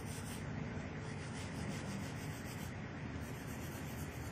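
Pencil scratching across sketchpad paper in a run of quick, repeated shading strokes.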